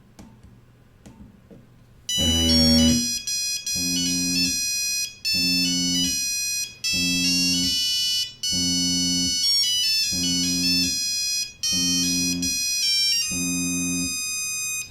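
Mobile phone ringtone playing through the phone's speaker. After a short pause it starts about two seconds in: a synthesized melody over a low chord that pulses about every second and a half, eight times over.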